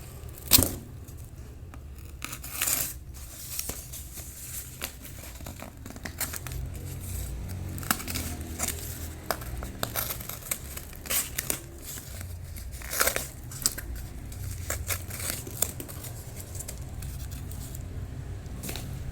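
Scissors cutting cardboard, with tearing, in short irregular strokes and clicks.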